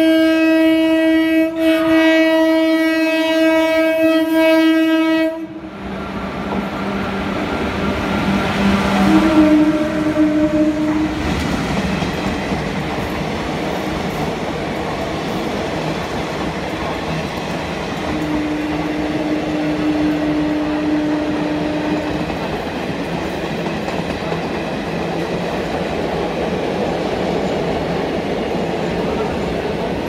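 WAP-4 electric locomotive's horn sounding one long chord-like blast of about five seconds, then two shorter horn notes about nine and eighteen seconds in as it runs through. From about six seconds on, the steady rumble of the train passing at speed, coach after coach.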